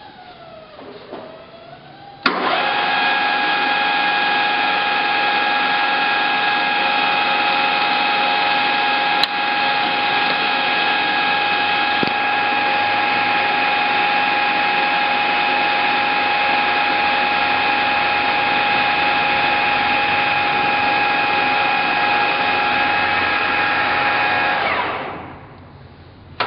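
Clark 1440 engine lathe's geared headstock running: a steady machine whine with several fixed tones. It comes in abruptly about two seconds in, holds steady, then dies away as the spindle coasts down near the end. There is a single sharp click midway.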